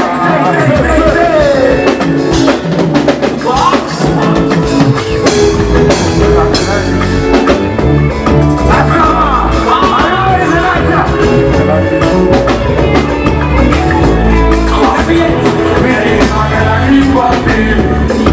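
Loud Afrobeats-style music with a steady beat and bass line that comes in under a second in, with a singing voice over it.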